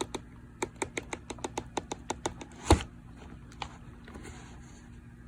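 Light handling noise: a quick run of sharp clicks and ticks, then one heavier thump a little under three seconds in, followed by a few faint clicks.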